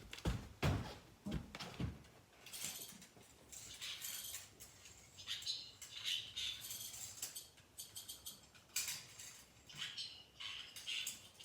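Handling noises: a few knocks in the first two seconds, then irregular light scratching and rustling scrapes.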